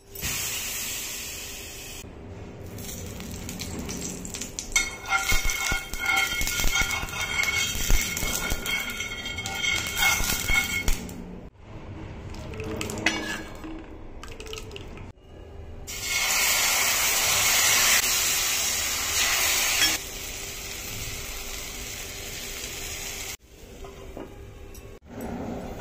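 Kitchen cooking sounds: a steel ladle clinking against a steel bowl, then batter sizzling on a hot cast-iron tawa in a strong steady hiss for several seconds past the middle, and a steel lid set down on the pan near the end.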